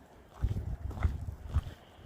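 Footsteps in boots, about two steps a second, each a low thud.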